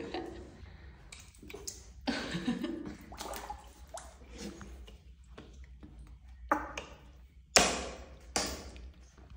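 Water sloshing and dripping in a plastic tub as a cat is held and rubbed in the bath, with a series of small splashes; the loudest, sharpest splash comes about three-quarters of the way through.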